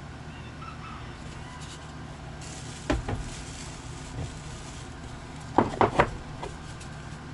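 Hollowed wooden boxes being handled, giving light wooden knocks and clunks: a pair about three seconds in, then three quick knocks near the end, over a steady low hum.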